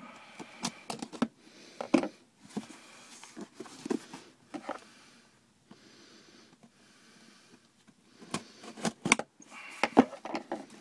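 Small cardboard shipping box handled and turned over: scattered taps, scrapes and rustles, then a run of sharper clicks near the end as fingers pick at the packing tape to open it.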